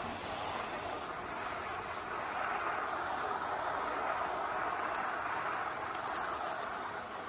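Bernzomatic MAP gas hand torch burning with a steady hiss of flame, played over wet-painted plywood to char it. The hiss swells a little louder in the middle.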